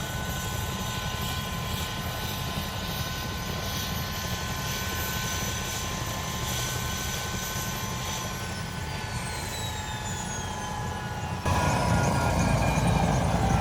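Bell UH-1 Huey helicopter running: a steady turbine whine over low rotor rumble. From about eight seconds in, the higher whine tones fall in pitch. Near the end the sound jumps suddenly louder, with a heavier low rumble.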